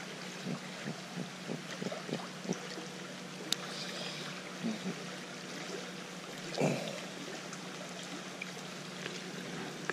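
Shallow creek running over a riffle: a steady rush of water, with a few light knocks from hands handling a small trout.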